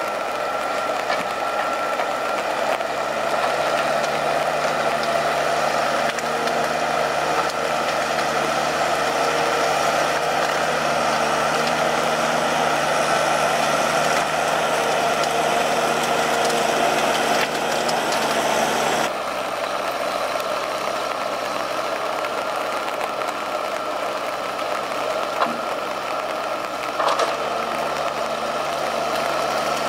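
Valmet 840.3 forwarder's diesel engine running steadily. It grows a little quieter about two-thirds of the way through, and two short sharp knocks come near the end.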